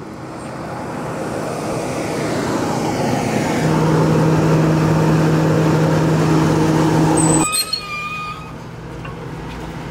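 Diesel engine of a school bus running, growing louder with a steady low hum. It cuts off suddenly about three quarters of the way through, leaving quieter sound with a few thin high tones.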